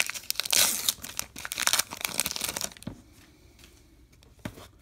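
A baseball card pack's wrapper being torn open and crinkled by hand: a dense crackle for about the first three seconds, then quiet handling of the cards with a single tap near the end.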